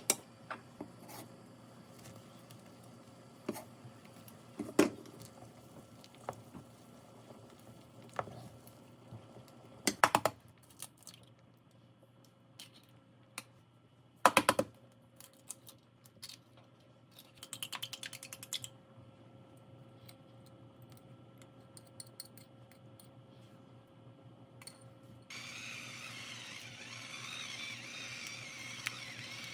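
Scattered clicks and knocks of things being handled, several in quick clusters, with a brief rapid rattle. A steady hiss starts suddenly near the end.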